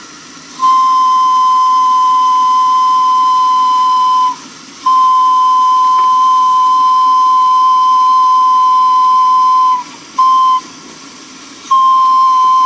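Telolet-style horn holding one high steady note in long blasts: one of about four seconds, one of about five, then a short toot and another blast starting near the end.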